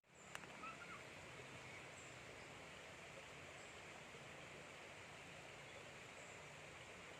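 Faint steady rush of flowing river water, with a few faint bird chirps in the first couple of seconds.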